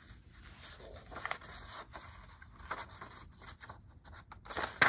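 Soft rustling and scraping of a picture book's paper pages being handled, with a louder rustle near the end as a page is turned.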